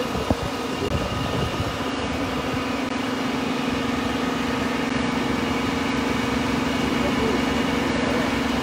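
An engine running steadily with a constant hum, a couple of sharp knocks about a quarter of a second in.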